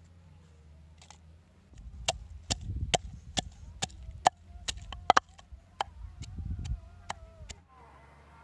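Wooden pestle pounding onion pieces in a wooden mortar: a run of sharp wood-on-wood knocks with dull thuds beneath, about two to three a second. The pounding starts about two seconds in and stops shortly before the end.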